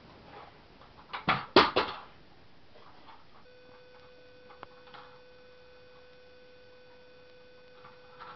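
A quick run of sharp knocks and clatters as a toddler handles toys, a bit over a second in, followed by one light click. A faint steady electronic whine hums under the second half.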